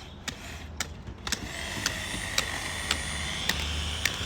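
Sharp knocks at uneven intervals, about two a second, over a low rumble, with a steady high whine that comes in about a second and a half in.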